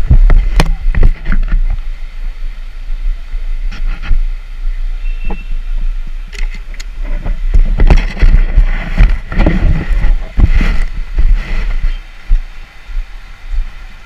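Wind rumbling on the microphone and knocking handling noise from a camera carried on foot, with irregular crunches of steps on loose stones.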